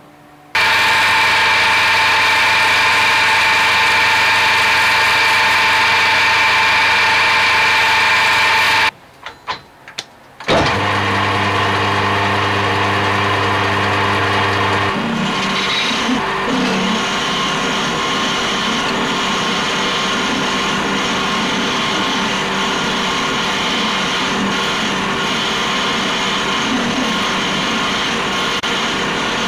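Metal lathe running with a steady motor hum and gear whine. It breaks off briefly with a few clicks about nine seconds in. From about fifteen seconds the running turns rougher, with light crackles, as a hand-held tool works the spinning steel shaft.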